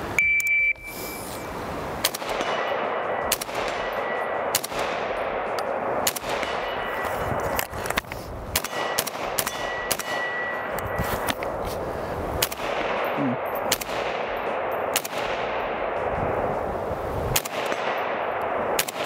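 A shot timer beeps once, then an FN SCAR 17 rifle in 7.62×51 mm fires a string of about fifteen single shots, roughly one a second. Struck steel targets ring after many of the hits.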